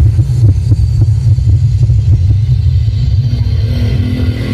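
Large stacked-subwoofer sound system playing bass-heavy music during a sound check: a loud, deep, pulsing bass dominates, with little above it, easing off slightly near the end.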